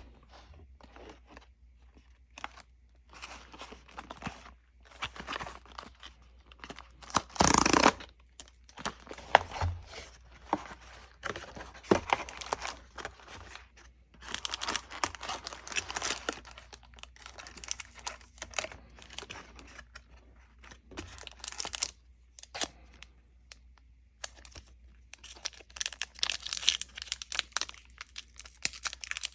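Plastic and foil packaging of a Disney Lorcana trading-card booster box being torn open and crinkled by hand, in irregular bursts, with one loud rip about seven and a half seconds in.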